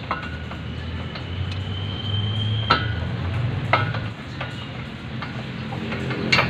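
Light metallic clicks and taps of hand tools on steel suspension parts, a few sharp clinks standing out, over a steady low hum.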